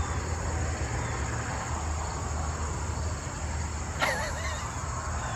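Road noise from passing traffic: a steady rushing hiss over a low hum.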